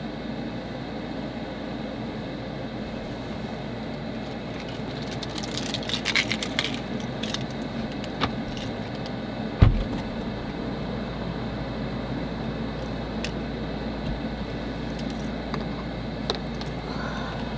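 A steady low hum with handling noises: clinking and rattling about five to seven seconds in, a few sharp clicks, and one heavy thump near the middle.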